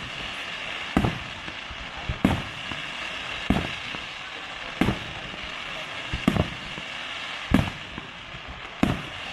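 Aerial fireworks display: a regular series of sharp bangs, about seven in all, roughly one every second and a quarter, over a steady background hiss.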